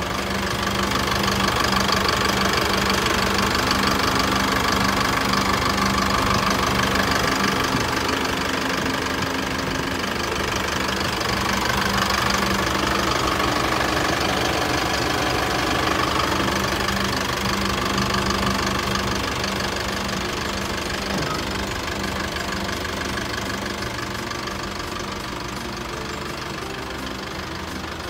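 Mazda Titan truck's engine idling steadily, louder through the first half and easing off toward the end.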